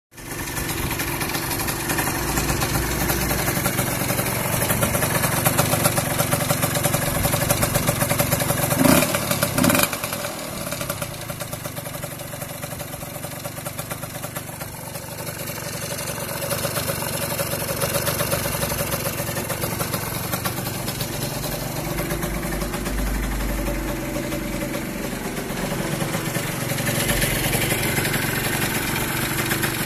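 Longjia LJ50QT-K scooter's freshly rebuilt 1E40QMB 50cc two-stroke engine running, mostly at idle, with two short louder bursts about nine seconds in. It runs well after the rebuild.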